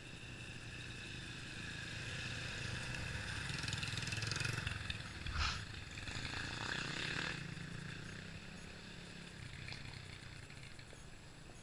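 Motorcycle engine passing by, growing louder to a peak mid-way and then fading off, with a brief sharp knock about five seconds in.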